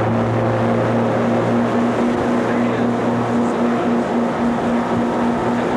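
Ski tow boat's engine running steadily at speed, with a steady rush of water and wind.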